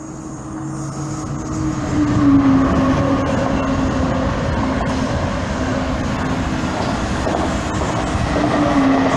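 TGV Atlantique high-speed trainset passing at speed: a steady rush of wheels, rails and air that builds over the first two seconds, then holds. A low hum swells about two seconds in and again near the end, as the leading and trailing power cars go by.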